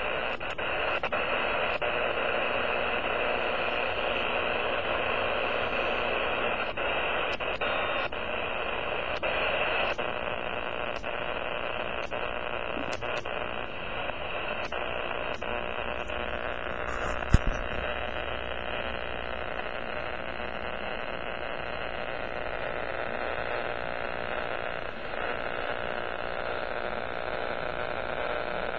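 Amateur radio receiver putting out power line noise: a steady rough static hiss through the speaker, with scattered sharp clicks and one louder pop about 17 seconds in. The noise is interference from a nearby power line swamping the ham bands.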